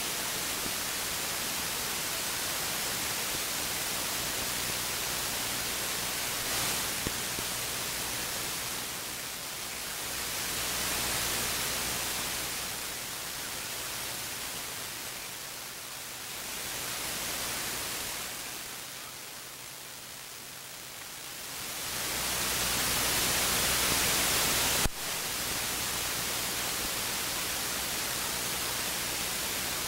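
Static hiss from a radio receiver with a steady low hum underneath, the hiss swelling and fading over several seconds at a time. It swells loudest about 22 seconds in, then a sharp click about 25 seconds in cuts it back to its earlier level.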